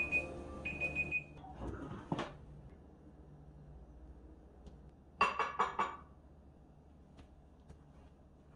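Oven timer beeping with a high electronic tone, stopping about a second in. A few seconds later, four quick metallic clanks from a metal muffin tin as it is taken out of the oven and set down.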